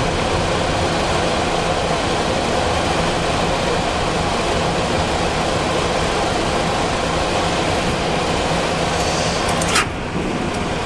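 Steady flight-deck noise of a Boeing 737-400 with its CFM56 engines still running at idle. A sharp click comes near the end, and the noise drops slightly after it.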